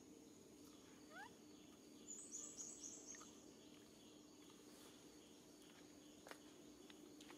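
Near silence: faint outdoor ambience with a steady low hum and a thin high tone, broken by a quick run of five high chirps about two seconds in.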